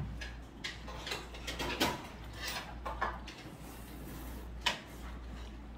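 A person eating: chewing and mouth sounds with irregular clicks of chopsticks against a plate, the sharpest click near the end, over a low steady hum.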